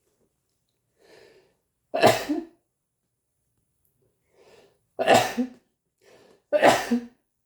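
A man coughing three times, a few seconds apart, each hard cough preceded by a short, fainter intake of breath; the cough is the sign of a cold.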